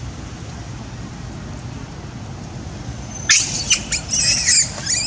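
Macaque monkeys give a burst of shrill, high-pitched squeals with rising and falling pitch. It starts about three seconds in and lasts nearly two seconds, over a steady low outdoor background noise.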